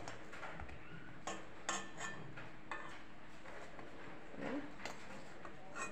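Metal spoon clinking and scraping against a steel kadai as fried pointed gourds are lifted out of the oil: a handful of separate clinks spread across a few seconds.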